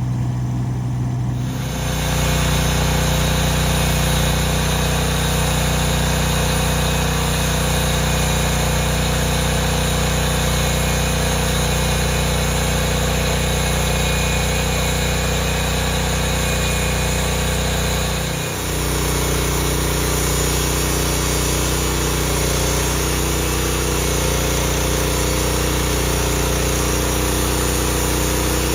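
An engine running steadily, coming up to speed about two seconds in. A little past the middle it dips briefly in speed and loudness, then recovers.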